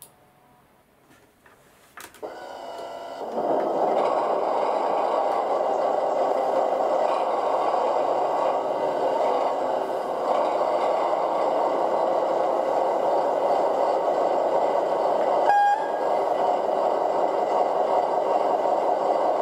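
Factory-fitted DCC sound decoder of a Lenz O gauge DB V100 diesel locomotive model playing its engine sound through the model's small loudspeaker. A click about two seconds in, then the diesel engine starts up and settles into a steady idle, with a brief click about three-quarters of the way through.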